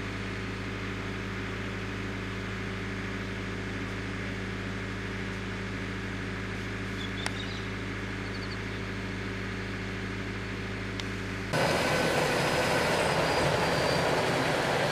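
Road train's diesel engine idling with a steady, even low hum. About eleven and a half seconds in, the sound cuts to a louder, rougher noise of a fuel-tanker truck moving past.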